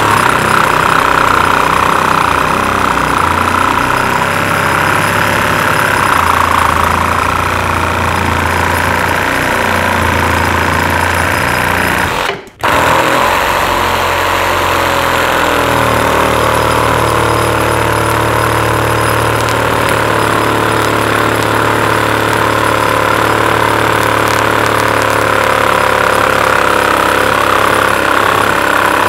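SnapFresh cordless reciprocating saw running and cutting, a loud steady buzz that stops for a split second about twelve seconds in.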